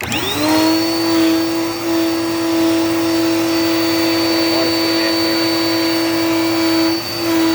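Dirt Devil Power Max vacuum cleaner switched on, its motor spinning up within half a second to a steady loud hum with a high whine. The pitch and level dip briefly about seven seconds in.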